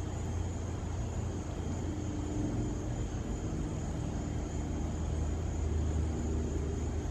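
Steady low rumble of distant engine noise, with a faint hum that shifts slightly in pitch now and then.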